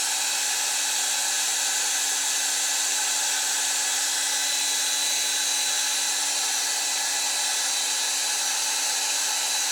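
Handheld hair dryer running steadily, blowing air to dry wet acrylic paint, with a steady motor hum under the rush of air.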